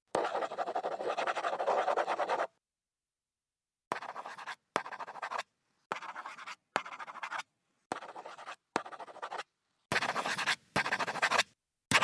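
Scratchy handwriting on paper with a pen or pencil: one continuous stretch of about two seconds, then a run of about eight short separate strokes of half a second or so, each stopping dead into silence.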